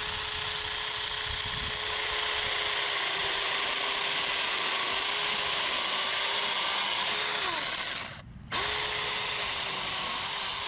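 Saker 20-volt mini electric chainsaw running and cutting into a wooden tree log, a steady motor whine over the rasp of the chain. The pitch sags under load, the saw stops for a moment about eight seconds in, then starts again.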